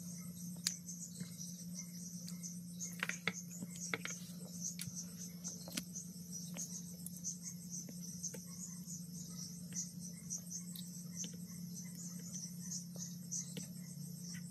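Crickets chirping steadily over a steady low hum, with faint scattered clicks and taps of a soldering iron and tools on a circuit board.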